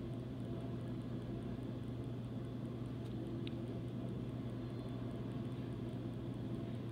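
Steady low rumble and drone of a diesel train, with one faint click about halfway through.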